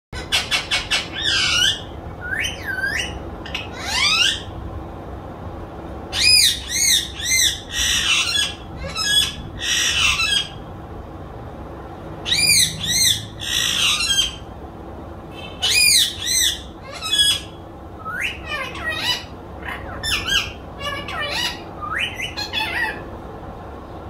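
Parrot giving shrill, repeated squawking calls in clusters of several quick notes, with short pauses between the clusters.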